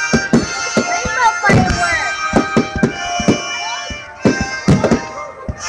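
Aerial firework shells bursting in a rapid, irregular run of sharp bangs. Loud music with long held tones plays underneath.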